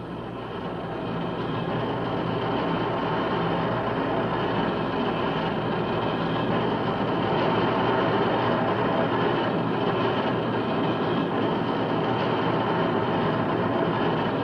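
Steady mechanical din of heavy machinery running, growing louder over the first two seconds and then holding level.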